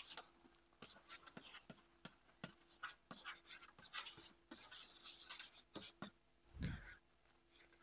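Chalk writing on a blackboard: faint, irregular taps and scratches of chalk strokes, with a soft low thump about two-thirds of the way through.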